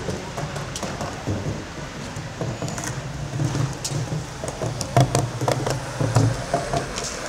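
Skateboard rolling over smooth stone paving: the wheels keep up a rough, uneven rumble, broken by sharp clicks and knocks, the loudest about five and six seconds in.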